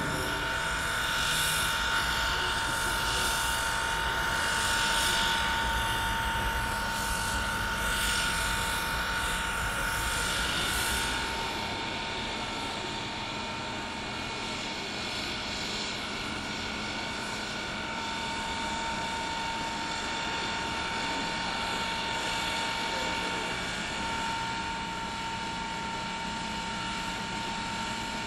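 Reading & Northern 425, a 4-6-2 Pacific steam locomotive, standing with a steady whine and hiss from its running equipment. A rhythmic pulsing with a low rumble drops away about eleven seconds in, leaving a quieter steady hiss and hum.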